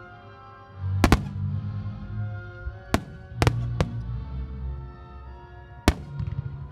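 Fireworks shells bursting in five sharp bangs, with music playing throughout.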